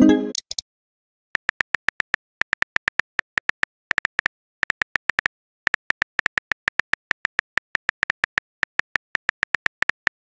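Simulated phone-keyboard typing clicks of a texting-story app: a fast, uneven run of short identical ticks, one per typed character, in small bursts with brief pauses. At the very start there is a short pitched message-sent sound.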